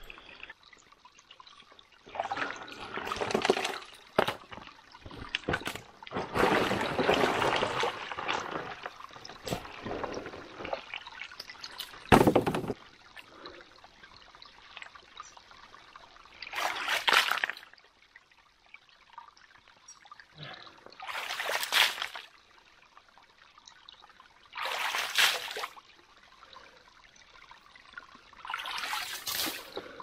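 Hands digging and scooping in a shallow creek pool, splashing water and shifting gravel in separate bursts every few seconds, with a sharp knock about twelve seconds in, over a faint steady trickle of water. This is sand and gravel being dug out by hand around a micro-hydro intake pipe to clear its filter.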